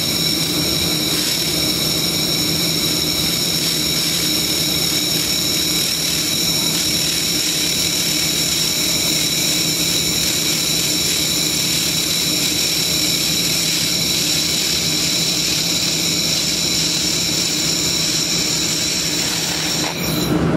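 Handheld 1 kW fiber laser welding gun firing along a seam: a steady high whine with a hiss and low hum underneath, cutting off shortly before the end as the weld stops.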